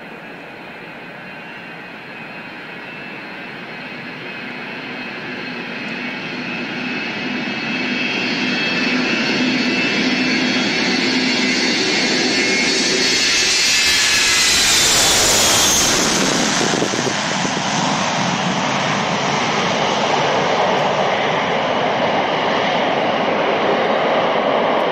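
Boeing 707 freighter's four jet engines at takeoff power, the whine growing steadily louder as the aircraft rolls closer. About 15 seconds in the whining tones fall in pitch as it passes, and a loud, broad rushing noise carries on as it moves away.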